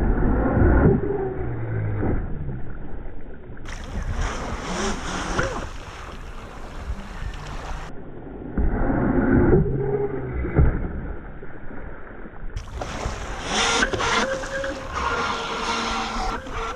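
Radio-controlled jet boat running fast across lake water, its motor pitch rising and falling as it turns and throttles, with water rushing around the hull.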